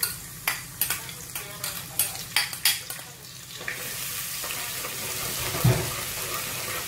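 A metal spoon clicking and scraping against a ceramic bowl and an aluminium pot as chopped garlic goes into hot oil. After about three and a half seconds, a steady sizzle of the garlic frying in the oil as it is stirred, with one dull knock near the end.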